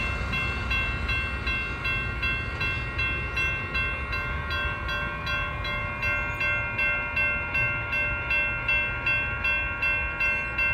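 Railroad crossing warning bell ringing in a rapid, even rhythm, about two to three strokes a second, and cutting off suddenly near the end as the crossing clears after the train has passed.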